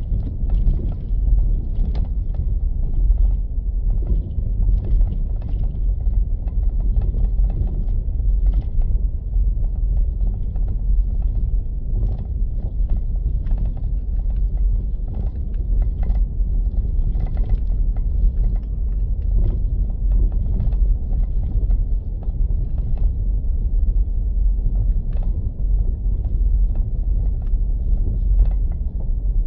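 Truck driving slowly over a rough dirt road: a steady low rumble with frequent small rattles and knocks from the bumpy ground.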